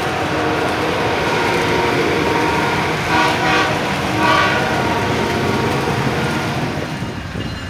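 A train passing close by with a steady rumble of wheels on rails. Its horn sounds two short blasts about three and four seconds in, and the rumble eases off near the end.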